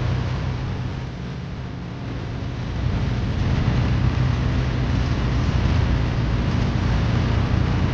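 Tractor engine running steadily under load, its low note easing off a little about a second in and growing louder again about three seconds in.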